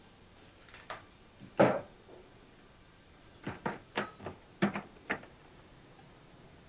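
Knocks and clunks of things being handled in a kitchen, like cupboard doors and objects set down on a counter: one solid knock under two seconds in, then a quick run of lighter knocks about halfway through.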